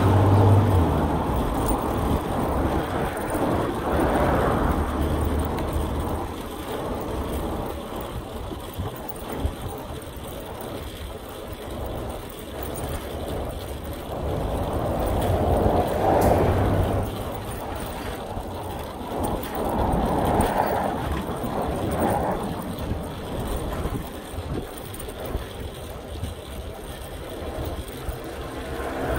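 City road traffic heard from a moving bicycle: a steady rumble that swells several times as vehicles pass.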